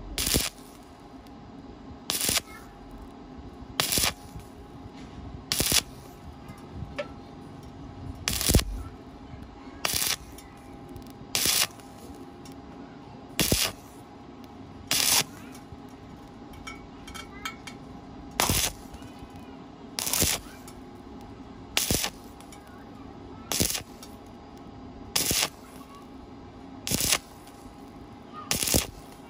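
Stick-welding arc on thin square steel pipe, struck in short stitches to bridge the gap without burning through: a brief crackling sizzle about every 1.7 seconds, each lasting a fraction of a second, over a steady hum.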